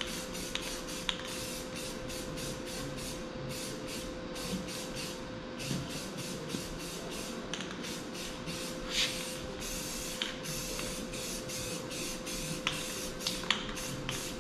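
Aerosol spray paint can hissing in many short, quick bursts, several a second, with a pause of about a second near the middle. A steady low hum runs underneath.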